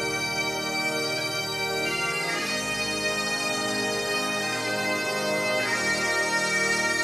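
Bagpipe music: a slow melody of long held notes over a steady drone, changing note twice.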